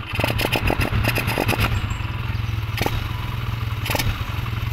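A Euro 150 motorcycle's single-cylinder engine running on a newly fitted TMX 155 carburettor, with a steady low firing pulse. A fast clattering ticking runs through the first second and a half, and single sharp clicks come near three and four seconds.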